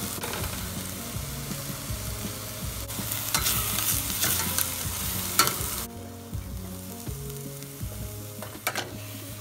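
Diced onion and garlic sizzling in a stainless steel saucepan while a spatula stirs and scrapes the pan. The sizzle drops away suddenly about six seconds in, and a few sharp knocks follow near the end.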